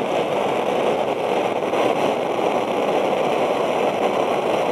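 Homemade copper coil jet alcohol stove burning at full output under a pan, its pressurised jet flame making a steady roar like a petrol or gas stove. The maker is unsure why it runs so busy and thinks vapour may be escaping where the copper pipe passes through the lid.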